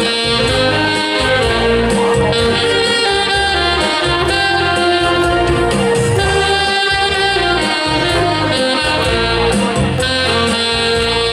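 Saxophone ensemble of alto and tenor saxophones playing a Hakka folk tune in unison, with held melodic notes over a low, pulsing accompaniment.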